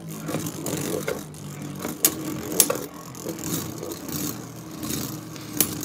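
Two Beyblade Burst spinning tops whirring steadily in a plastic stadium, with a few sharp clacks of hits about two seconds in, again just after, and near the end.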